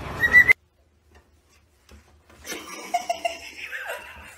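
A cockatiel calls with a short, steady high call that cuts off sharply about half a second in. After a silent gap of about two seconds, faint short sounds begin.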